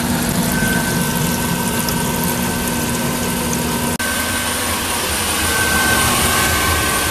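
Air being forced through a water tank, churning it into steady, vigorous bubbling over a constant motor hum. After a cut about four seconds in, a centrifugal blower runs with a steady whir and a faint high whine. This is the blower pushing coffee-roaster exhaust through the bubbling water to strip out the smoke.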